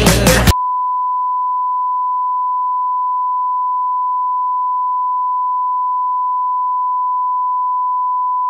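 Music cuts off about half a second in and gives way to a steady 1 kHz test tone, the reference tone that goes with television colour bars.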